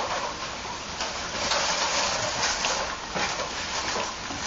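A litter of English Bulldog puppies eating from a metal bowl, making a steady lapping and snuffling noise that thickens about a second and a half in, with a few faint knocks later on.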